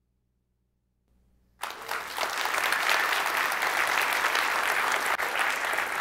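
Audience applauding, starting suddenly about a second and a half in and going on steadily.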